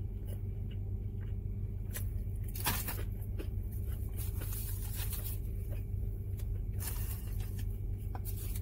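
Low steady hum of a car idling, with soft eating sounds over it: chewing and a few small crunches, clicks and rustles from handling a fried chicken sandwich.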